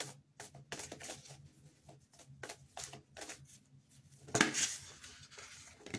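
Tarot cards being shuffled and handled: a run of quick, light papery clicks, then a louder rustle a little past four seconds in.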